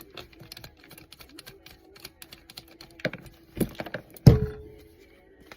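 Small irregular metallic clicks and rattles of hand tools working on fan parts, then a few louder knocks, the loudest a metal clank about four seconds in that rings briefly.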